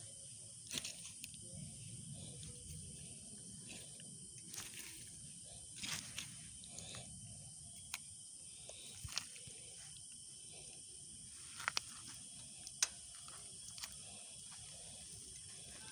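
Quiet outdoor background with a steady hiss and a dozen or so short, sharp clicks and rustles scattered irregularly through it, the loudest near the end.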